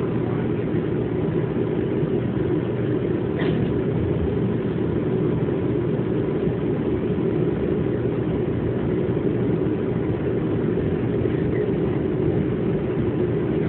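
New York City Subway 2 train car running steadily along elevated track, a constant rumble of wheels on rails heard from inside the car.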